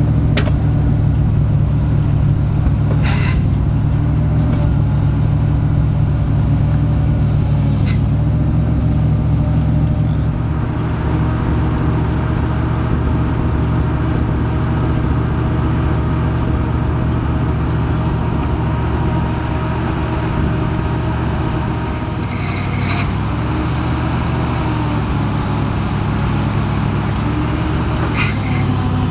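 Chevrolet 454 big-block V8 engine running steadily at idle, with a few sharp clicks and clanks over it.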